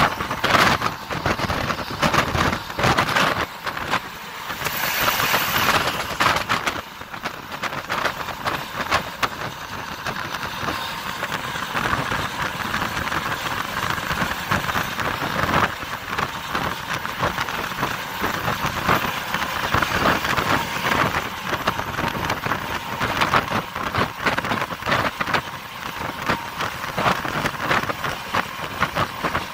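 Road and engine noise of a moving bus, overlaid with wind buffeting the microphone, which is held out of the bus's window.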